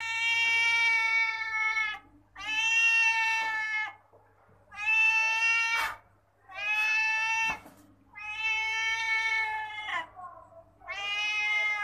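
Tabby cat meowing for food: six long meows in a row, each about a second and a half to two seconds long, with short pauses between.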